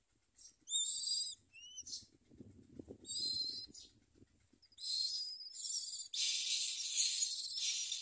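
Common myna nestlings begging for food: a few short, high-pitched calls, then from about six seconds in a loud, continuous, harsh hissing begging chorus.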